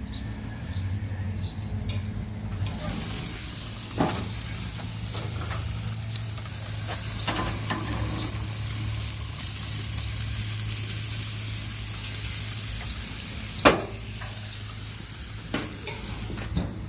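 Food sizzling on a hot grill surface: a steady frying hiss that swells in about three seconds in and fades near the end, over a steady low hum. A few sharp clicks, the loudest about three seconds before the end.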